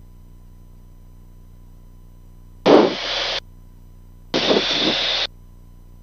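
Cirrus SR22 cockpit audio feed while taxiing: a faint steady engine hum, broken twice by a loud burst of engine noise under a second long as the intercom microphone opens, about three and four and a half seconds in.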